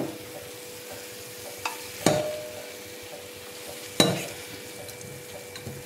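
A steel kadai and wooden spatula knocking against the rim of a steel pressure cooker as sautéed pumpkin pieces are tipped and scraped into it: a light tap, then two sharp knocks with a short ring about two and four seconds in, the second the loudest, over a steady faint hiss.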